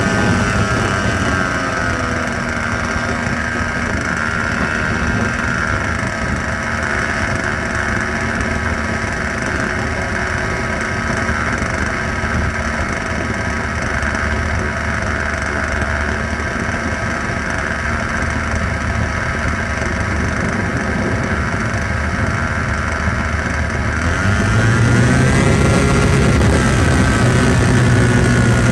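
OS 61 SF two-stroke glow engine on an RC plane running steadily at idle on the ground, picked up close from the onboard camera; near the end the pitch and level step up as the throttle is opened a little.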